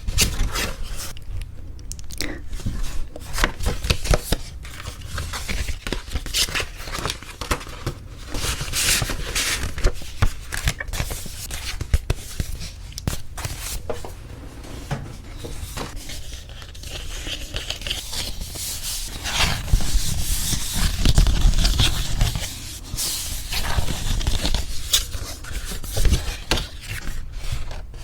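Paper wedding invitation cards handled close up: continuous crisp rustling, scraping and rubbing of card stock, with irregular crackles and taps as the cards are shifted and fingered.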